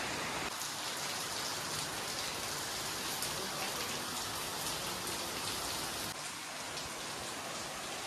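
Water falling from a rock overhang and spattering on rocks and a pool, a steady rain-like hiss that shifts abruptly about half a second in and again about six seconds in.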